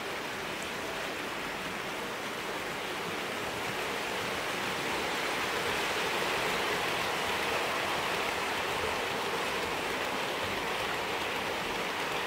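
OO gauge model train, a Hornby Class 43 HST hauling Mark III coaches, running past on the track with a steady rushing of wheels on rail that grows louder over the first half and then holds.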